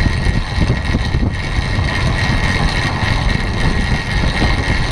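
Steady wind rumble on the microphone of a camera mounted on a track bicycle riding at about 27 mph, mixed with tyre and drivetrain noise on the velodrome's wooden boards and a steady high whine.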